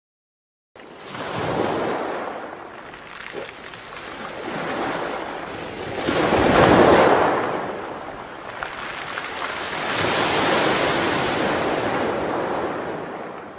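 Sea waves breaking and washing onto a pebble beach, starting about a second in and swelling and ebbing in three surges, the loudest in the middle.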